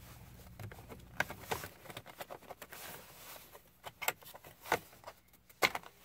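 Plastic clicks, knocks and rubbing from a Jeep Compass's upper steering column cover being lifted and worked loose from its clips, with a few sharper clicks in the second half.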